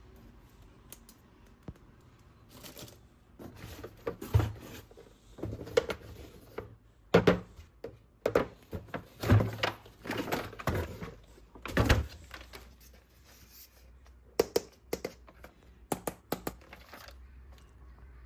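Plastic toys and their packaging being handled: an irregular string of knocks, clicks and rustles, the loudest knocks about four, seven, nine and twelve seconds in.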